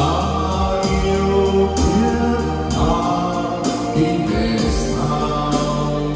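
A man singing karaoke into a wireless microphone over a backing track, played loud through an Lx acoustic event sound system of line-array speakers and subwoofers, with heavy bass.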